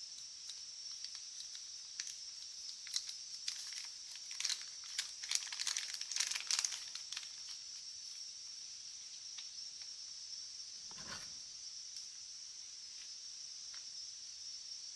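Faint crinkling and clicking handling noises, densest a few seconds in, over a steady high hiss.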